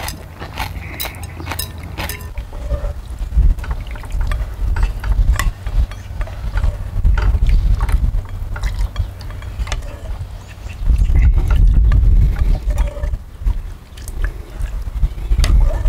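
Outdoor eating sounds: noodles slurped, chopsticks and a ladle clicking against bowls and the pot, and broth ladled from the pot. A low, gusty rumble of wind on the microphone runs underneath and is loudest a little after the middle.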